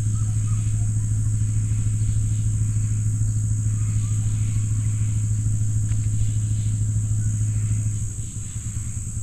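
Car engine running at low speed with a steady low hum and rumble, which eases off about eight seconds in as the vehicle slows.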